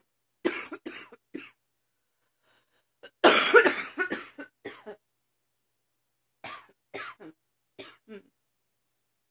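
A woman coughing in fits: a quick run of three coughs, then a louder, longer fit about three seconds in, then several lighter coughs later on.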